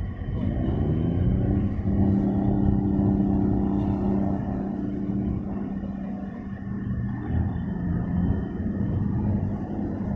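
An engine speeding up, its hum rising in pitch over the first second or two, then running at a steady pitch over a low rumble.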